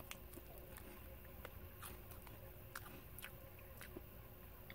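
Faint chewing of a mouthful of Umaibo corn puff stick: a few soft, scattered mouth clicks over quiet room tone.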